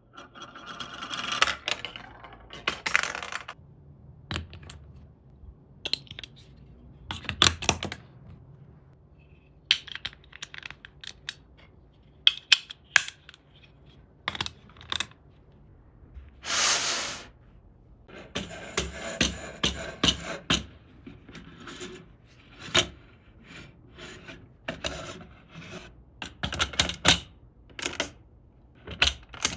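Plastic building bricks being handled and pressed together: sharp clicks and knocks at irregular intervals, with a few short spells of plastic rubbing and rattling.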